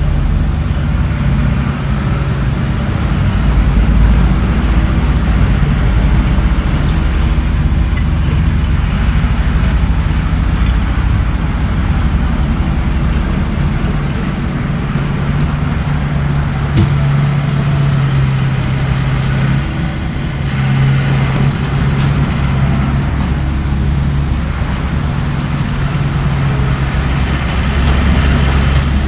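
Bulldozer's diesel engine running under load, its hum swelling and easing as it works, with a sharp knock about halfway through.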